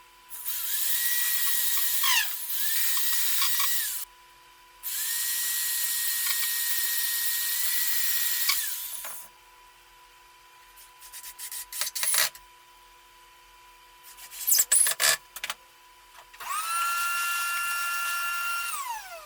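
Electric hand drill run in four bursts, each motor whine spinning up and winding down, one long run in the middle and a last one near the end. Two clusters of sharp clicks and clatter fall between the later runs.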